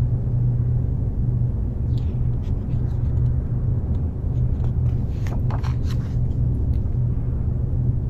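Spacecraft engine sound effect: a steady low rumbling drone. Faint higher sounds come and go about two seconds in and again around five to six seconds in.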